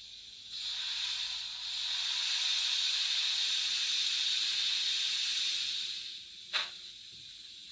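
A steady hiss lasting about five seconds, like escaping steam or air, which fades out and is followed by a single sharp click.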